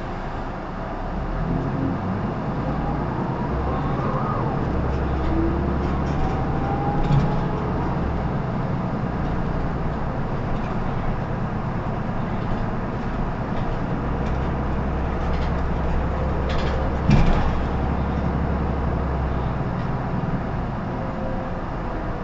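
Isuzu PKG-LR234N2 (Erga Mio) city bus running: steady diesel engine rumble and road noise, with a whine that rises and then falls in the first few seconds. A sharp knock about 7 s in and a louder one about 17 s in.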